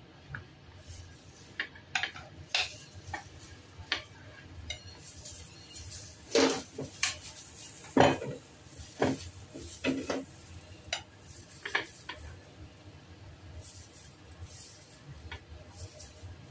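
Irregular clinks and knocks of a ceramic plate and bowl being handled and set down on a counter, the loudest near the middle, with faint rustling of a plastic food-prep glove.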